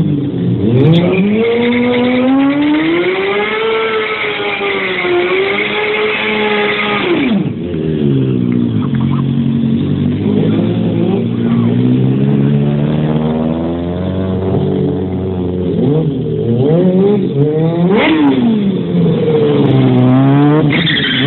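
Sport motorcycle engines revving hard during stunt riding, the pitch rising and falling again and again as the throttle is blipped and held.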